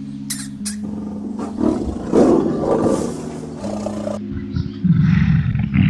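Deep, rough animal roars, twice: one from about a second and a half in and a louder, lower one near the end, over background music.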